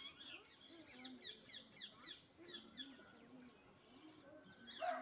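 Ducklings peeping: a quick run of short, high, down-slurred peeps, about four a second, thinning out after about three seconds. A rooster starts crowing right at the end.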